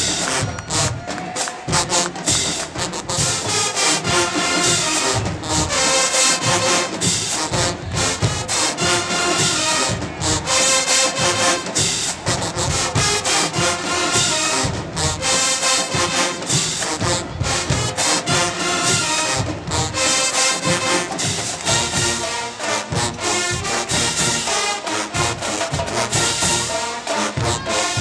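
A marching band's brass section, with sousaphones, trumpets and trombones, playing a tune over a steady drumline beat.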